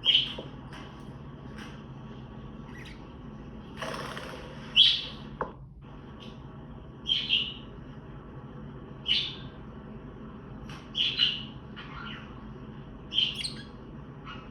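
Budgie giving short chirping contact calls, one about every two seconds, over a low steady hum. A brief burst of rustling noise comes about four seconds in.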